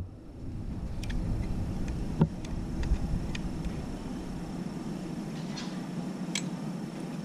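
Faint clicks and taps of fingers handling the plastic parts of a linear air pump while a small plastic screw is pushed through its frame, scattered a few times over a steady low hum.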